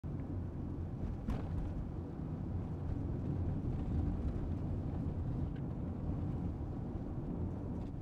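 Steady low rumble of a Toyota car on the move, engine and road noise heard from inside the cabin, with one faint click about a second in.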